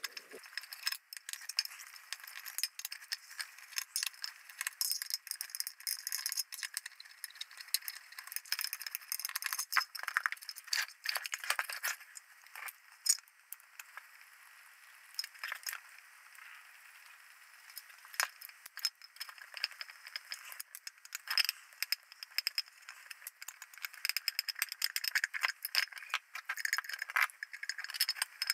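A screwdriver undoing screws in the metal housing of a flare dispenser unit: irregular small metallic clicks and rattles of the tool against the screws and casing, with a quieter stretch around the middle.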